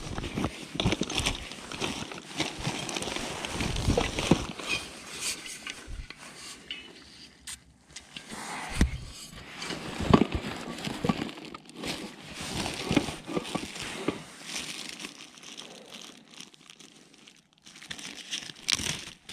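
Rummaging through a nylon backpack and crinkling a clear plastic bag of soft-plastic fishing baits: irregular fabric rustling and plastic crackling with scattered small clicks and knocks.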